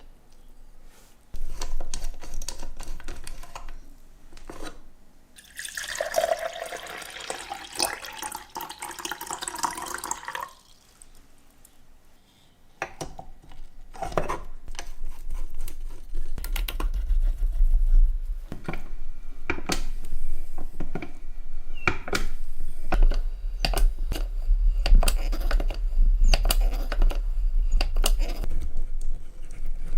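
Water running, with a rising tone for a few seconds like a container filling, among many small clicks and knocks of parts being handled.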